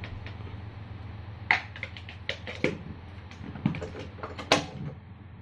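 A few light clicks and knocks of kitchen utensils being handled around a stainless-steel pressure cooker, scattered irregularly, the sharpest one near the end.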